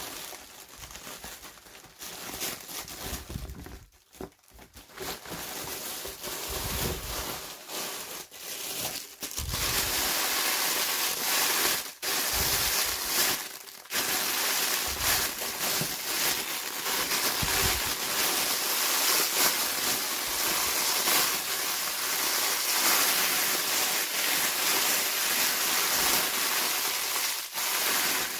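Plastic toy packaging crinkling and rustling as it is handled and opened, with small clicks; sparse and stop-start at first, then steady and louder from about ten seconds in.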